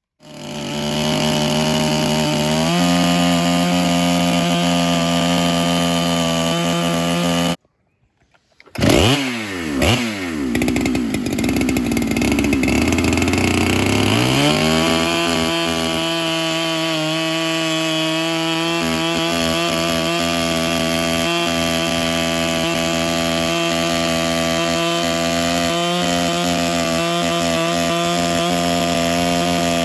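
Electric chainsaw with a ripping chain running steadily as it rips along a log in an Alaskan-style mill jig. It breaks off briefly about eight seconds in. Its pitch then drops as the motor slows under load in the cut, and a few seconds later it climbs back to a steady whine.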